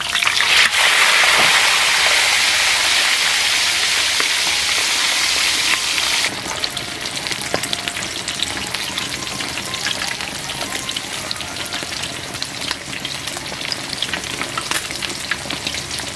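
Skin-on pork belly deep-frying in a wok of hot oil after being turned meat side down: a loud dense sizzle as it goes back into the oil, dropping abruptly about six seconds in to a steady bubbling sizzle full of small pops and crackles.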